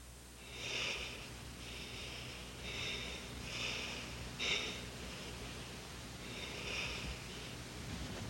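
Sleeping people breathing noisily through the nose, a string of hissing breaths and snorts at about one a second, some louder than others, over a faint low hum.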